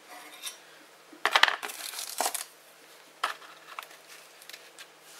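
Handling noise from the metal parts of a lathe headstock: a cluster of sharp metallic knocks and clinks about a second in, then scraping and a few lighter clicks.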